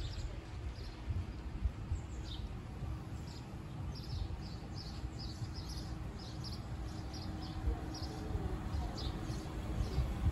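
Small birds chirping in quick, repeated short notes, over a steady low rumble of wind on the microphone.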